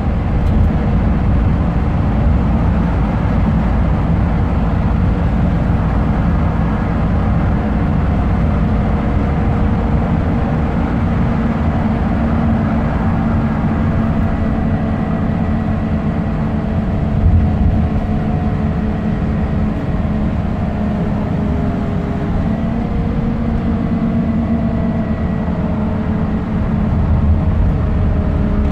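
Scania K270UB bus heard from inside the cabin while under way: the rear-mounted five-cylinder diesel runs steadily under road and tyre rumble, with a faint whine that drifts slowly in pitch.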